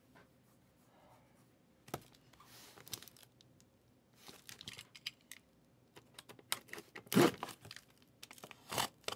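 Cardboard shipping case being handled and opened: scattered scrapes, taps and tearing of cardboard and packing tape, quiet at first, with louder scrapes about seven seconds in and again near the end.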